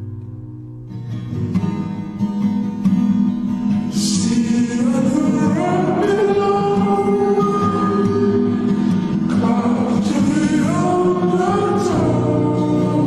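Soul song playing: guitar, with singing coming in about four seconds in.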